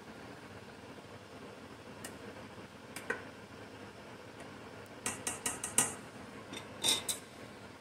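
Plastic spoon stirring rice in a stainless steel saucepan, clicking against the pan. There is a single tap about two seconds in and another about three seconds in, a quick run of five or six around five seconds in, and two more near the end.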